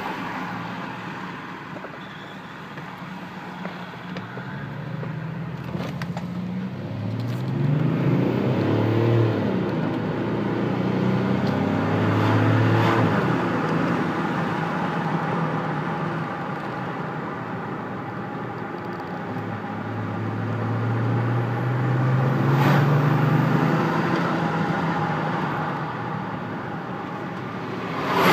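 BMW X5 3.0d's straight-six turbodiesel heard from inside the cabin, pulling under acceleration. The engine note rises in pitch in several pulls, about 7 to 9 seconds in, 10 to 13 seconds in and 20 to 23 seconds in, dropping back between them, with a brief louder noise at the very end.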